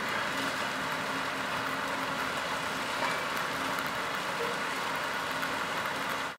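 Tractor engine running steadily as it pulls a working trailed potato harvester, with the steady mechanical rumble of the harvester mixed in.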